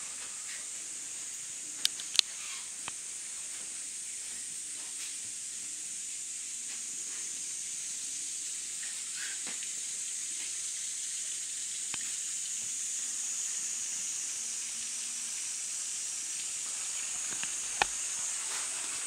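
Steady high-pitched hiss, with two sharp clicks about two seconds in and another near the end.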